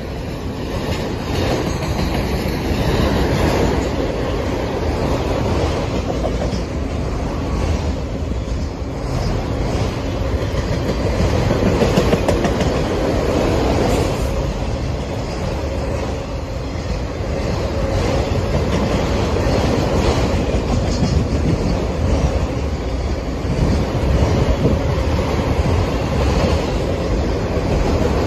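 Empty autorack freight cars rolling past close by, with a steady rumble and clatter of steel wheels on the rails.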